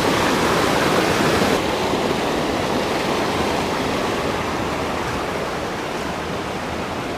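Rushing water of a fast-flowing creek: a steady hiss of flowing water with no distinct events, slowly growing a little quieter.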